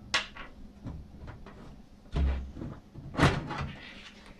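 A removable hard drive cage being worked loose and pulled out of a small PC case: a few knocks and clunks of metal parts, with a low thump about two seconds in and the loudest knock just after three seconds.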